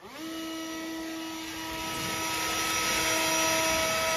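Kobalt 80-volt cordless leaf blower spinning up at the start, then running with a steady electric whine over the rush of air, getting louder around the middle as it blows leaves.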